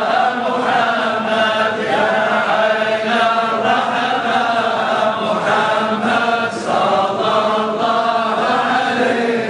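Sufi devotional chanting: voices chanting in one continuous, sustained line over a steady low drone.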